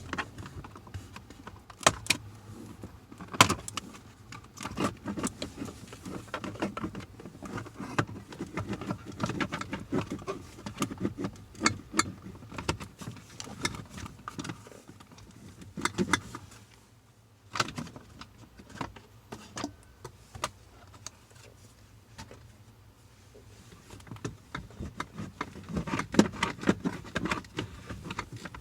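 Irregular clicks, taps and rattles of a screwdriver and loose screws against the plastic trim as the steering column covers are unscrewed and pried off, with a short lull a little past halfway.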